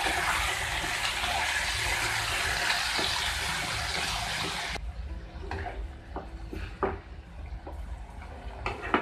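Wet ground masala paste sizzling hard in hot oil as it is stirred in with frying potato pieces. About five seconds in the sizzle cuts off suddenly, leaving a spatula knocking and scraping against the pan.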